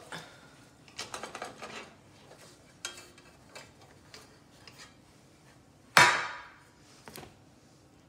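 Metal loaf tin and wire cooling rack clattering as a baked cake is turned out of the tin: a run of light knocks and scrapes about a second in, then a single loud metallic clang about six seconds in that rings briefly as the empty tin is set down.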